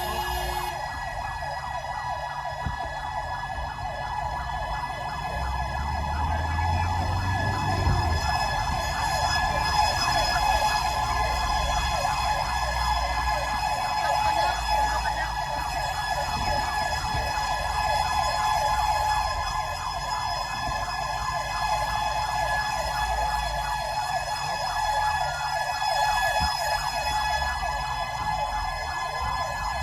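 Fire-rescue vehicle's siren sounding during an emergency response: one continuous high tone held at a steady pitch, over the vehicle's engine, which rises briefly about seven seconds in.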